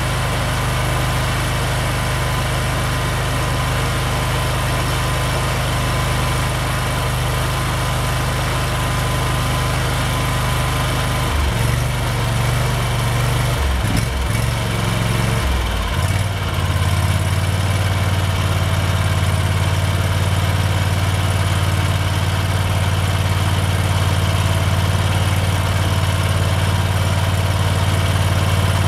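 614 cc, 20 HP Rotek V-twin petrol industrial engine running steadily. About halfway through its speed wavers for a few seconds while its front-panel control is being adjusted, and it then settles to a steady, lower-pitched idle.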